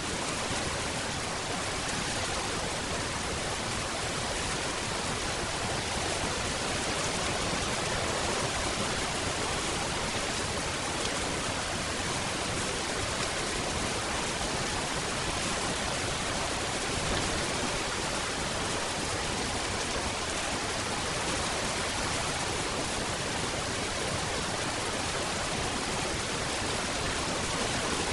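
Steady rain falling, an even hiss with no distinct drops, thunder or other events standing out.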